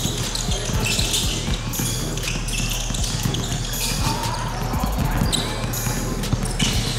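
Basketball bouncing on a hardwood court during a game: repeated dull thuds throughout, with players' voices in the background.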